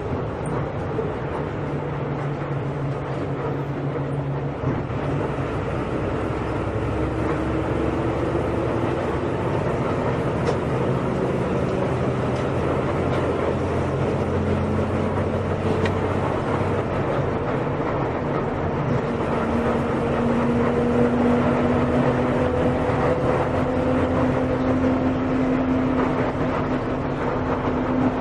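Volksbus 17.230 EOD bus engine running under way, its pitch rising slowly as the bus gathers speed.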